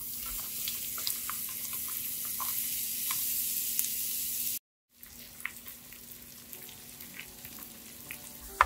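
Sliced onions sizzling and spitting as they hit hot mustard oil with dried red chillies in a frying pan, with scattered small pops. The sizzle is loud for the first four and a half seconds, cuts out abruptly for a moment, then carries on quieter. A faint steady hum runs under it.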